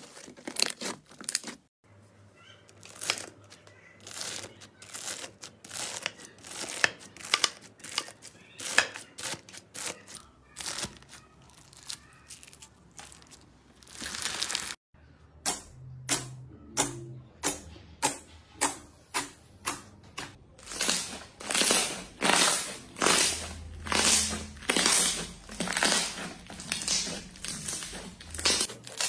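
Hands squeezing and kneading slime: a dense run of sharp crackles, pops and squelches as air pockets burst. After the first cut the slime is a bead-filled floam that crunches under the fingers. In the last part a glossy slime is pressed flat in a more regular series of louder pops.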